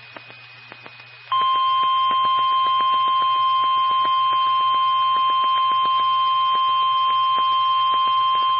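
Emergency Alert System attention tone: after a second of faint static, a loud, steady high-pitched tone comes on and holds, signalling a warning about to be read, with radio static crackling under it.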